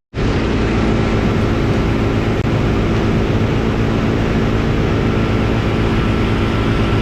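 Boat engine running steadily while underway, loud and close, with a faint thin whine above its hum.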